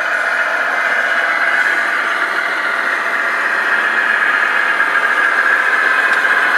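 Radio-controlled model trucks driving, their electric motors and gearboxes giving a steady high whine.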